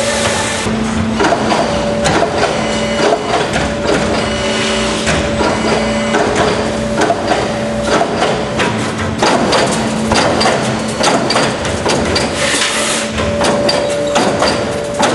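Coil-fed CNC turret punch press punching sheet metal: a fast, uneven run of sharp punch strokes over a steady machine hum. A short hiss comes at the start and another about twelve seconds in.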